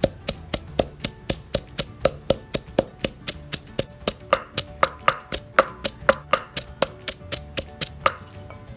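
Wooden pestle pounding sliced herbs and shallots into a paste in a clay mortar, steady strikes about four a second. Guitar music plays underneath.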